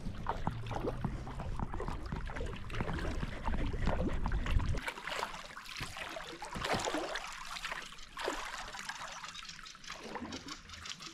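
Water trickling and splashing, with many small drips and plashes. A low rumble underneath cuts off abruptly about five seconds in.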